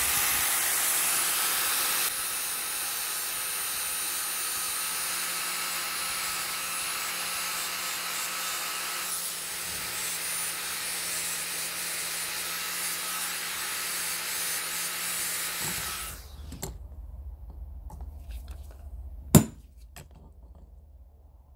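Angle grinder with an abrasive disc grinding rust off the steel parts of an old curling iron: a steady noise with a thin high whine, stopping about sixteen seconds in. A few seconds later comes one sharp knock.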